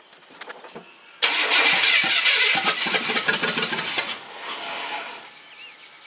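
Chevy 4x4 truck engine cranked by its starter for about three seconds, starting suddenly about a second in, then a quieter tail that fades out. It is a test start on a shot of gas poured into the intake, with the fuel pump not yet delivering fuel.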